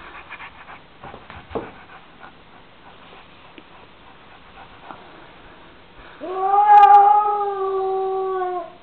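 A frightened domestic cat gives one long, drawn-out defensive yowl about six seconds in. It rises at the start, then holds steady for a couple of seconds before cutting off.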